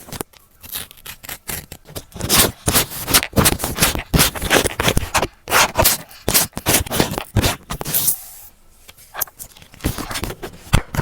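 Close-up paper crafting sounds from journal collage: rapid scraping and rustling of paper and stickers being handled. There is a brief lull near the 8-second mark.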